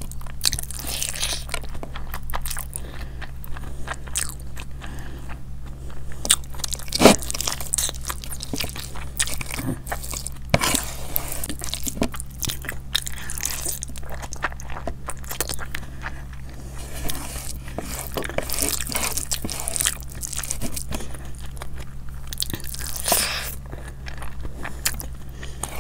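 A person eating close to the microphone: chewing and biting, with irregular crunches, wet mouth sounds and small clicks, over a steady low hum.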